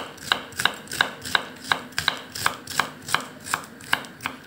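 Kitchen knife slicing a head of cabbage into thin shreds on a wooden cutting board, the blade knocking on the board in an even rhythm of about three cuts a second. The cutting stops near the end.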